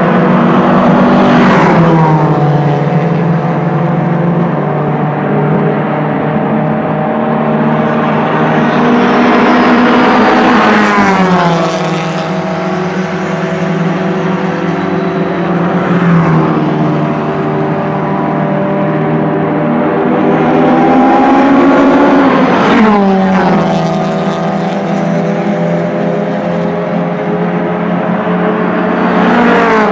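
Sports cars passing at speed on a race circuit one after another, each engine's note dropping sharply in pitch as it goes by, about five passes, with other engines running under them.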